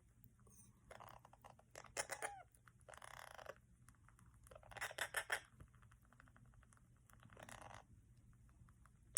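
Month-old Indian ringneck parakeet chicks giving short, raspy, chattering calls while being spoon-fed, in about five separate bursts.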